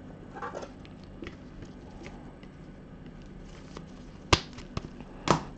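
Trading cards and hard plastic card holders handled by gloved hands: faint rustling and light taps, with two sharp plastic clicks about a second apart near the end.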